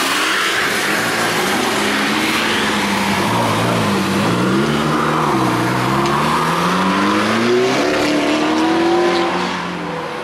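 Supercar engine revving as the car pulls away: its pitch dips and rises a couple of times, then climbs steadily before falling away near the end.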